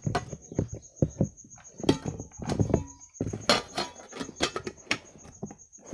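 Close handling noise: irregular clicks, knocks and rustles right at the microphone, as things are picked up and moved about.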